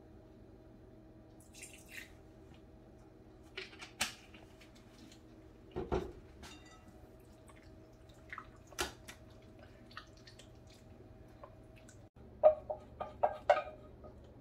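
Kitchen utensil sounds: a silicone spatula stirring and tapping in a glass mixing bowl, with a few scattered light knocks. Near the end comes a quick run of sharper metal clinks as a whisk scrapes the egg-yolk mixture out of a steel double-boiler pan into the bowl. A faint steady hum lies underneath.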